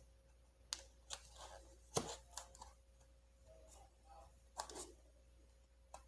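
Faint clicks and light scraping of a plastic pry pick working against a laptop's plastic bottom case: a few scattered taps, the sharpest about two seconds in and another small cluster a little past the middle.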